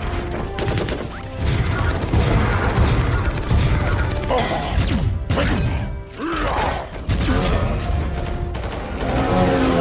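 Film battle sound mix: rapid machine-gun fire, crashes, and clanking, whirring robot mechanisms with sliding pitch sweeps in the middle, over a film score.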